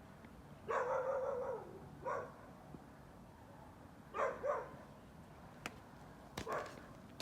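Animal calls: one longer call about a second in, then several short calls, including a quick pair, with a couple of sharp clicks near the end.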